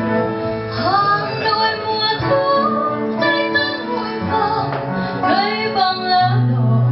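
A woman singing a slow Vietnamese ballad into a microphone, her voice entering about a second in, over acoustic guitar accompaniment.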